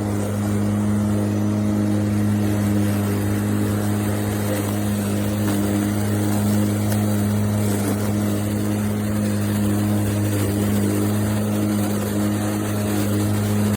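Lawnmower running steadily, a constant motor-and-blade hum with a low drone and no change in speed.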